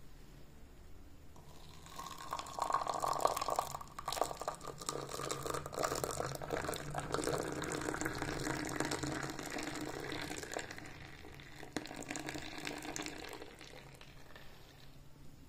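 Milk poured in a steady stream from a saucepan into a stainless steel tumbler of coffee decoction, splashing and frothing as the tumbler fills. The pour starts about two seconds in and tapers off near the end.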